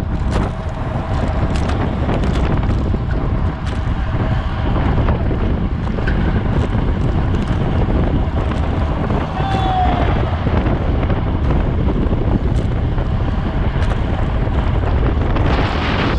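Wind buffeting the microphone of a camera riding on a racing bicycle at speed, a steady loud rumble with scattered clicks. A brief high squeak about ten seconds in.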